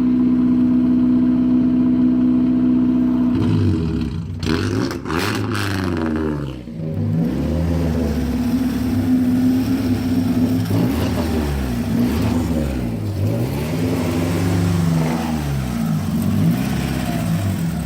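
Mazda Miata four-cylinder engine held at a steady raised speed for a few seconds. It then drops and is revved up and down repeatedly while being run on a Seafoam engine cleaning.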